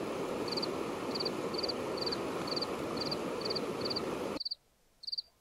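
River rapids rushing, with a cricket chirping steadily about twice a second over them; about four seconds in the river noise cuts off suddenly and only the cricket chirps go on.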